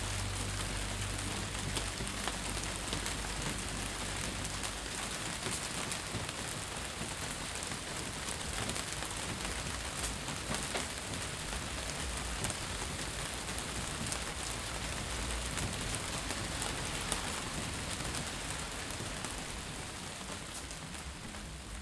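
Steady rain falling on wet paving and puddles: an even hiss with scattered sharp drop ticks. It fades out near the end.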